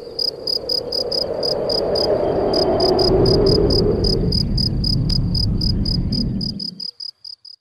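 Crickets chirping in an even rhythm of about four chirps a second, over a steady rushing noise that deepens about halfway through; both cut off suddenly near the end.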